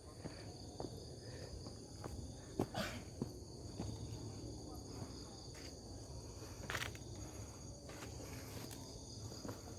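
A steady, high-pitched insect chorus holding several even tones, with the scattered crunches and knocks of footsteps on a dirt hiking trail over it.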